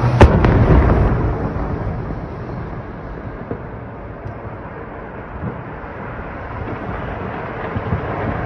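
Distant missile explosion: one sharp blast just after the start, followed by a rolling rumble that dies away over about two seconds, then a steady background noise.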